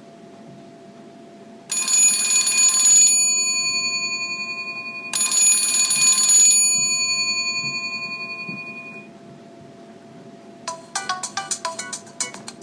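Built-in ringtones of an Alcatel OT-708 mobile phone. A bell-like chime sounds twice, about three and a half seconds apart, each ringing out and fading slowly. About eleven seconds in, a different tone starts as a quick run of short electronic beeps.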